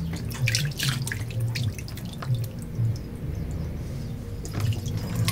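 Water splashing and dripping in a plastic basin as a whole boiled tuna is rinsed by hand, in a run of short splashes over the first two seconds or so and again near the end.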